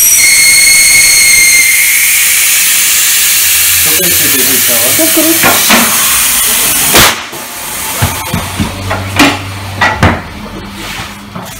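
Air hissing steadily out of a car tyre as it is let down on a tyre changer, with a whistle at the start. The hiss cuts off about seven seconds in and is followed by a few knocks as the wheel is handled against the bead breaker.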